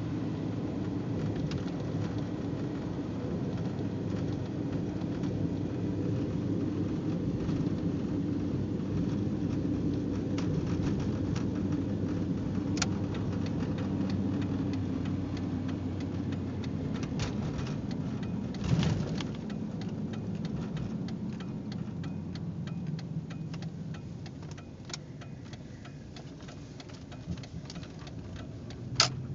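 Blizzard wind rumbling steadily on the microphone, easing a little in the second half, with a few sharp clicks now and then.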